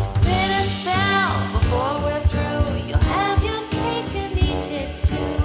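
Jazz song with a woman singing over a band with a steady beat. Her voice holds long notes and slides between them.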